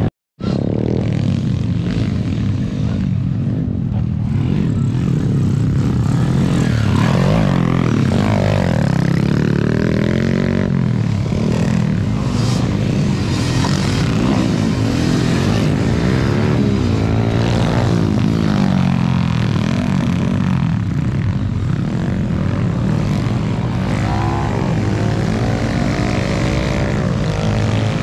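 Motocross dirt bike engines revving up and down as the bikes ride the dirt track, the pitch rising and falling with each run of acceleration. There is a brief silent gap just after the start.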